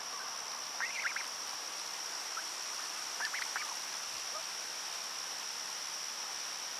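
Mallard ducks giving a few short calls, one cluster about a second in and another a little past three seconds, over a steady high-pitched insect drone.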